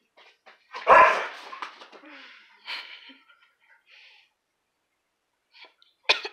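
A dog barks once, loud, about a second in, followed by a few quieter dog noises, and a short sharp sound just before the end.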